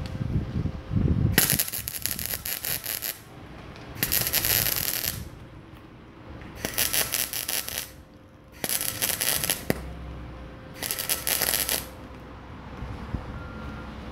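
Stick (arc) welding on a steel gate-wheel bearing mount: five short bursts of electrode arc crackle and sizzle, each a second or two long, with pauses between, as the mount is tacked in short runs.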